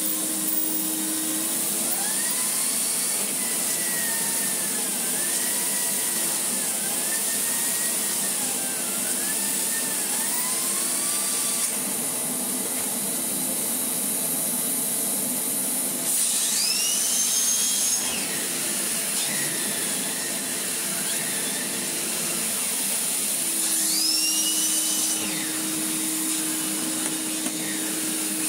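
Electrolux Z350 Electronic vacuum cleaner running steadily while its floor tools are pushed over carpet. A whine rises and falls in pitch repeatedly over the first half, and a higher whine sweeps up and holds twice in the second half.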